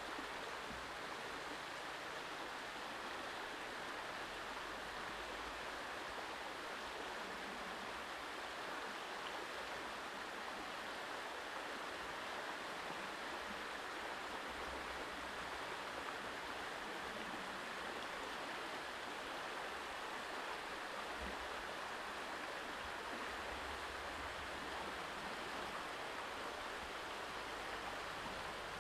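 Shallow rocky stream flowing: a steady, even rush of water.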